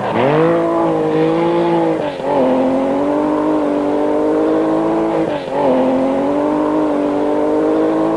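Porsche Carrera rally car's flat-six engine running hard at high revs, loud and steady, with the pitch dropping sharply and climbing back at three gear changes: at the very start, about two seconds in and about five and a half seconds in.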